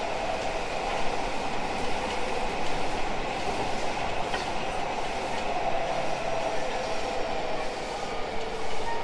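Odakyu 1000 series electric train (unrenewed, Mitsubishi GTO-VVVF control) running, heard from inside the car: steady wheel-on-rail rolling noise with some clickety-clack, and a few faint steady tones from the traction drive.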